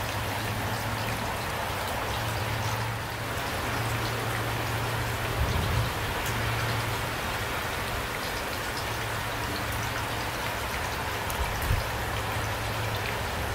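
Steady rain falling, with scattered drop ticks and two brief low thuds, one about five seconds in and one near the end.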